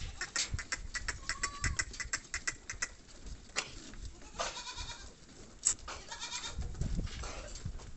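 Sojat goats bleating, with short calls about halfway through and again a little later, after a quick run of clicks and scuffs in the first few seconds.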